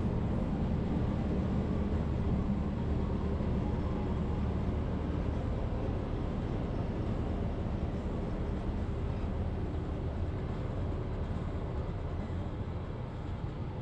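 Heavy vehicle engine running steadily with a deep rumble, easing off a little near the end.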